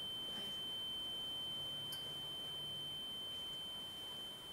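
A steady high-pitched ringing tone held at one unchanging pitch, a sound effect in a stage play.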